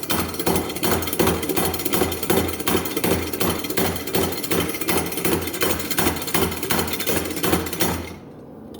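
Homemade leaf-spring power hammer pounding hot steel: a fast, steady run of metallic blows over a low hum, stopping about eight seconds in.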